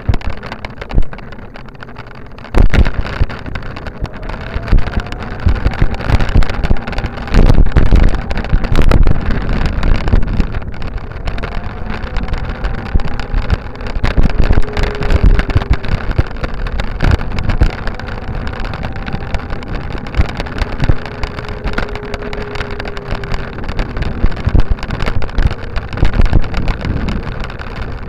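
Wind buffeting the microphone of a camera moving along a paved path, with a steady rumble and frequent knocks and rattles from bumps in the path. There is a sharp jolt about two and a half seconds in and heavier bumps around eight to nine seconds in.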